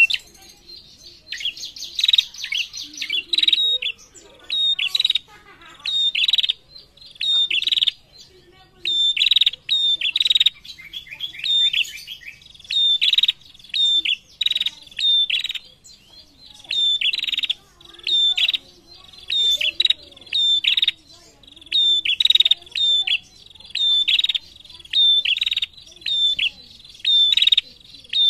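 Female prenjak (ashy tailorbird) calling nonstop in a cage: sharp, high chirps, each with a short dry rattle, repeated in quick clusters about once or twice a second.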